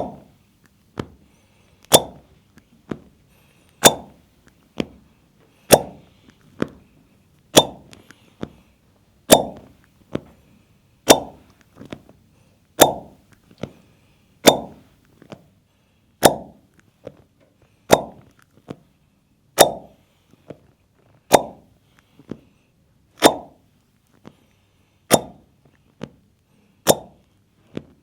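Hollow, slapping pops against bare skin in a steady rhythm from percussive massage work on the body. A strong pop comes about every two seconds with a lighter one in between.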